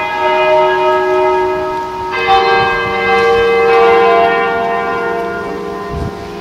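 Church bells ringing: struck notes hang and slowly fade, with a fresh strike adding new tones about two seconds in.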